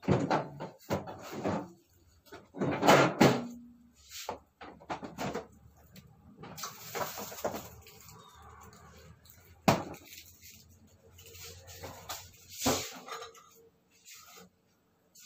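Kitchen clatter: scattered knocks and bumps of things being handled, with a sharp knock about ten seconds in.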